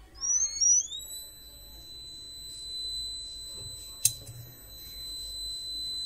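Small buzzer on a homemade 9 V transistor fire-alarm circuit, set off by the heat sensor being warmed with a soldering iron. Its pitch rises over the first second as it starts, then it holds a steady, high-pitched tone. There is one sharp click about four seconds in.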